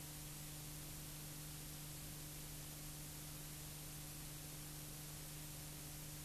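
Steady hiss with a low electrical hum and no other sound: the noise floor of a silent home-movie film transfer.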